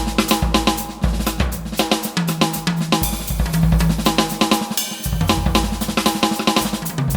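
EFNOTE 5 electronic drum kit played in a busy groove of kick, snare, hi-hat and cymbal hits, with a pitched bass line moving underneath.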